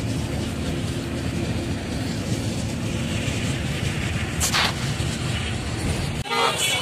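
Rumble of a moving bus heard from inside the cabin, with a brief hiss about four and a half seconds in. The rumble cuts off abruptly near the end, giving way to a different sound with stacked tones.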